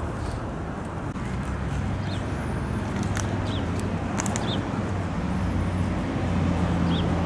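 Steady low hum of an idling vehicle engine, growing a little louder past the middle, with scattered light clicks and a few short high chirps over it.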